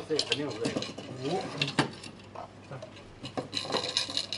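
Small wooden drawers knocking and clattering against the cabinet frame as they are pushed into and pulled from their slots: two sharp knocks about a second and a half in, then a quick run of clicks and clatter near the end.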